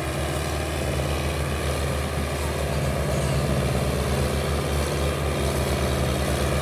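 Belarus tractor's diesel engine running hard under load as it pulls a heavy sugarcane trolley, a steady low throb that gets a little louder about two seconds in, with black smoke puffing from the exhaust stack.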